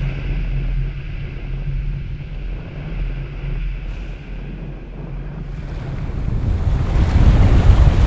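Small surf breaking at the shoreline and washing up and back over the sand, with wind buffeting the microphone. A louder wave rush builds near the end.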